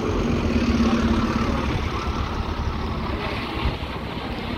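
A bus running close by: a steady engine rumble, with a low hum that fades out about a second and a half in.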